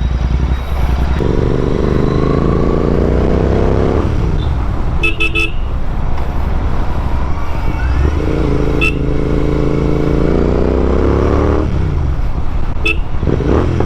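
Royal Enfield Continental GT 650's parallel-twin engine running through an aftermarket Red Rooster performance exhaust while riding, the loud exhaust note swelling twice for about three seconds each as it pulls. Brief sharp sounds come about five seconds in and again near the end.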